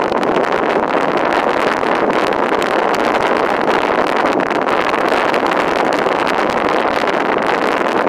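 Wind blowing across a phone's microphone on an open beach: a steady, loud rush with irregular crackling buffets. Ocean surf breaking underneath.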